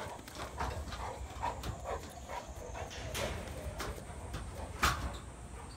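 Two Canary Mastiffs and a person in flip-flops moving about on concrete and turf: scattered footsteps and paw steps with a sharper knock about five seconds in, a few faint short dog whines, over water trickling steadily into the dogs' bathing trough.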